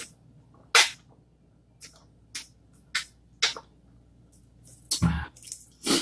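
A person drinking from an insulated tumbler: a string of short sips, gulps and breaths, the loudest under a second in, with a duller thump about five seconds in.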